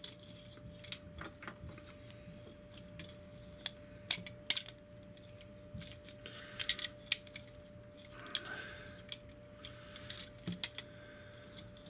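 Plastic parts of a TFC Eagle (Air Raid) transforming robot figure being handled, folded and clicked into place: scattered small clicks and taps, the sharpest a pair about four and a half seconds in, with brief rubbing between them. A faint steady hum lies underneath.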